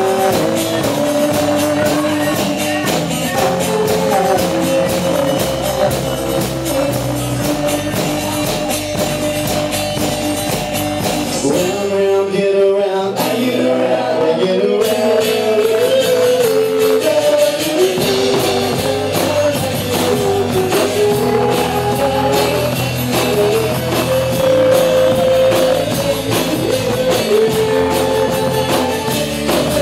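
Live band playing a pop-rock song: strummed acoustic guitar, electric bass and drum kit under a male lead vocal. About twelve seconds in, the low end drops out for several seconds, then comes back in.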